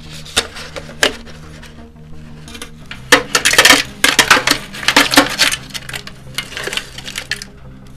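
Wet gravelly concrete being packed by a gloved hand into a tin can, the gravel scraping and clinking against the can's metal, busiest from about three seconds in. Two light clicks come in the first second.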